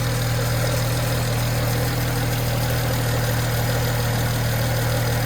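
BMW N54 twin-turbo straight-six idling steadily, run after an oil cooler hose replacement to check for oil leaks.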